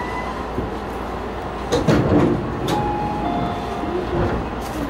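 Sliding doors of a Tobu 50000-series commuter train car closing at a station stop, shutting with a thud about two seconds in, followed by a short falling two-note tone.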